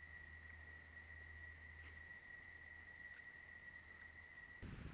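Faint, steady, high-pitched drone of insects, with a thin steady whine beneath it. About four and a half seconds in, a gust of wind hits the microphone.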